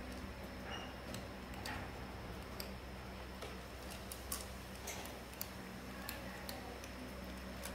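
Light, irregularly spaced clicks and taps, about one or two a second, over a low steady hum.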